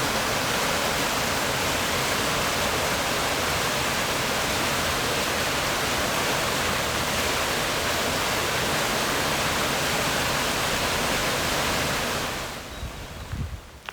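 Steady, loud rush of a fast-flowing creek or waterfall, fading out near the end.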